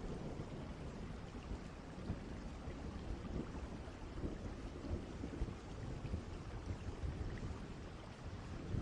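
Ambient thunderstorm recording: steady rain with low, rumbling distant thunder.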